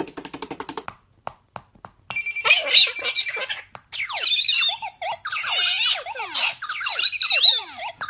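Sound effects played through a smartphone's small speaker from a soundboard app as a galah cockatoo steps on the screen: first a loud ringing, alarm-like tone, then a string of quick falling whistles. A rapid clicking at the start stops about a second in.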